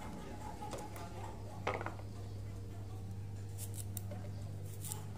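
Small kitchen knife clicking and scraping as garlic cloves are peeled by hand, with a louder knock about one and a half seconds in and a few light ticks later. A steady low hum runs underneath.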